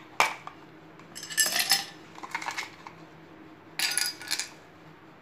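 Ice pieces dropped into drinking glasses, clinking and clattering in about four short bursts.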